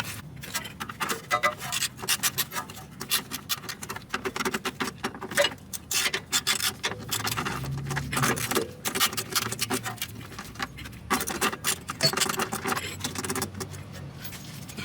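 Ratchet wrench clicking in quick, uneven runs as 10 mm bolts are backed out, with brief pauses between strokes.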